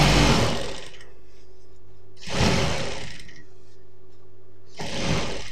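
Industrial lockstitch sewing machine running in three short bursts of stitching, each about a second long, with a steady low hum between them.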